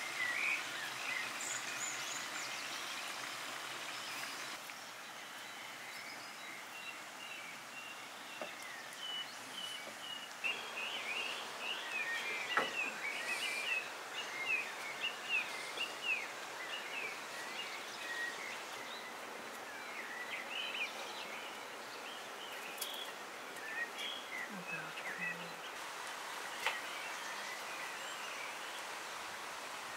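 Many small birds chirping and singing over a steady outdoor hiss, the chirping busiest in the middle of the stretch.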